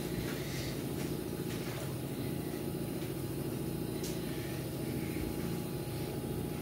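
Steady low mechanical hum of a kitchen appliance, with a faint click about four seconds in.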